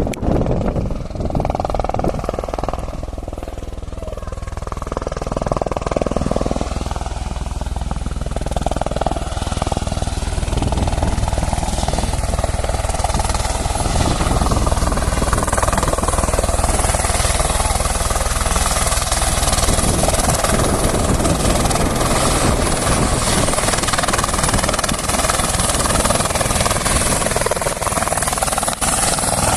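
Helicopter turbine and rotor running with a steady low thrum and a thin high whine. It grows louder over the first dozen seconds, then holds steady.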